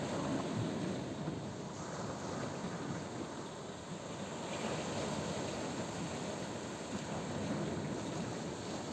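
Black Sea surf: waves washing onto the shore in a steady rush that swells and eases slowly.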